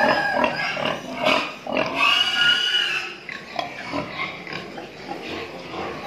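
Domestic pig grunting, with a high, drawn-out squeal about two seconds in, then quieter grunts.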